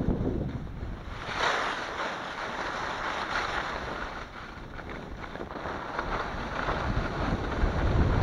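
Skis scraping and crunching over crusty piste snow, with wind buffeting the microphone; a louder scrape about a second in.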